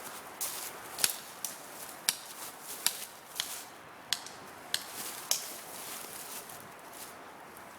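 A string of about eight sharp cracks, a half to three-quarters of a second apart, stopping about five and a half seconds in: airsoft pistol shots.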